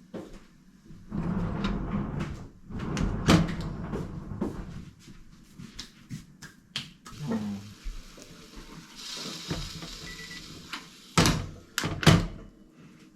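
Handling noises: rustling and clacking of items being moved about, a brief hiss in the middle, and two sharp knocks near the end.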